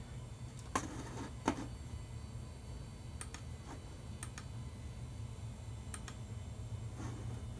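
A running Sony Vaio desktop computer setup: a steady low hum with a scattering of faint clicks and light ticks, two sharper clicks about a second in.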